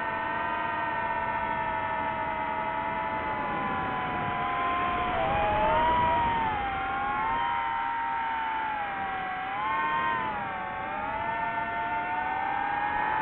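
DJI FPV drone's motors and propellers whining, the pitch rising and falling with the throttle. It swells louder and higher about six seconds in and again around ten seconds.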